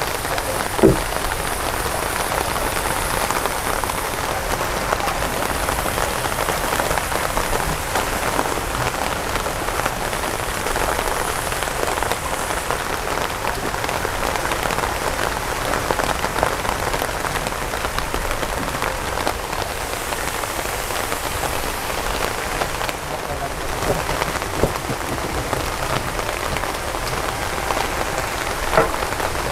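Steady hiss and patter of water falling on a surface, with a brief knock about a second in and another near the end.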